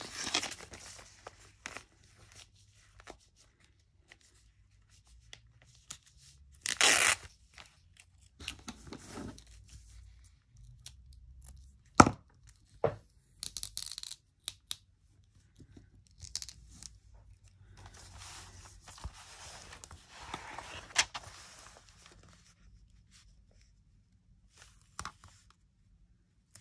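Handmade paper tape snipped with scissors and torn by hand, in several separate tearing and paper-rustling sounds, with sharp clicks about twelve seconds in and again later.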